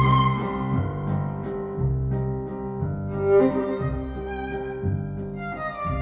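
Recorded string music, violin over deep sustained bass notes, played back at moderate volume through an ATC300 loudspeaker system in a listening room.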